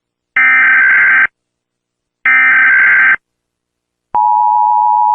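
Emergency Alert System SAME header: two shrill bursts of digital data warble, each just under a second long with about a second's gap between them. Near the end the steady two-tone EAS attention signal starts and holds.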